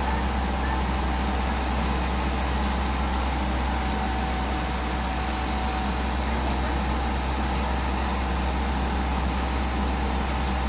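Komatsu PC78US excavator's diesel engine running steadily, with a deep low rumble.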